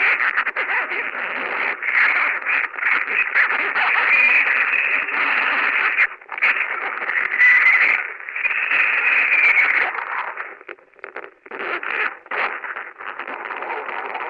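Harsh, heavily distorted noise-rock racket, narrow and tinny as if through a webcam microphone, with brief dropouts about six seconds in and a choppier, quieter stretch a little later.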